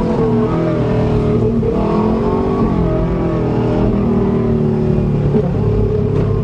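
Subaru Legacy's engine revving under hard acceleration while driven, its pitch rising and falling several times as the throttle is worked.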